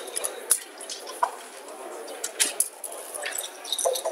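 Scattered sharp, irregular clicks and clacks of backgammon checkers and dice, over a low murmur of voices in the playing room.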